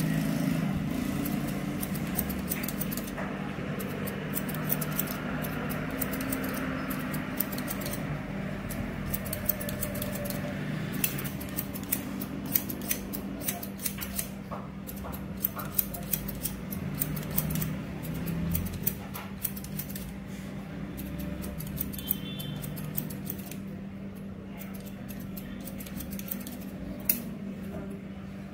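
Barber's scissors snipping through long hair over a comb: many short, sharp snips at an uneven pace, over a steady low hum.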